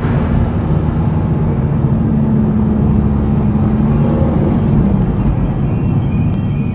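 A car driving at town speed: steady engine and tyre rumble, the engine note holding and then dropping away about five seconds in as the car slows. Faint high tones come in near the end.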